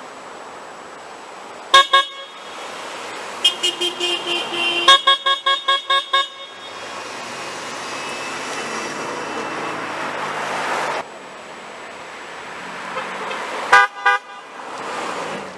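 Car horns honking from passing traffic: a double honk about two seconds in, then a run of quick short honks from more than one horn between about three and a half and six seconds, and another quick burst of honks near the end. Steady traffic noise runs between the honks.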